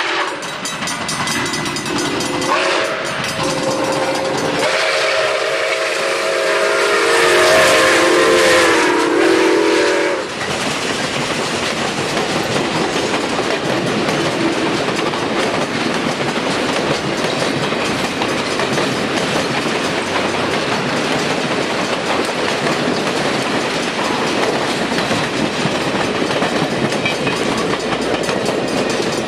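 Nickel Plate Road 765, a 2-8-4 Berkshire steam locomotive, blowing its whistle in several blasts, the last one the longest and loudest, ending about ten seconds in. Then comes the steady clickety-clack and rolling noise of the train running by.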